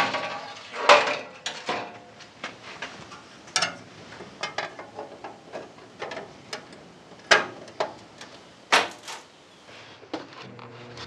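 Sheet steel clanking and scraping on a steel welding table as a rusty Series 1 Land Rover front grille is set down and a steel patch panel is fitted and clamped into it. Sharp separate metal knocks, the first ringing briefly, the loudest about a second in.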